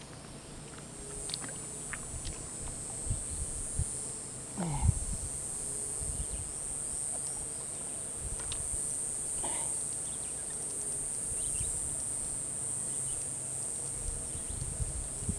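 Steady high-pitched insect chorus, with scattered light knocks and rustles and one louder knock about five seconds in.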